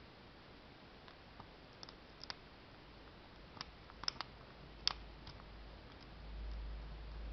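Faint, irregular small metal clicks and ticks of a dimple flag pick working the pins of an ISEO dimple (side-drilled) euro cylinder held under a tension wrench, a dozen or so scattered through, the sharpest a little past halfway. A low rumble comes in about two thirds of the way through.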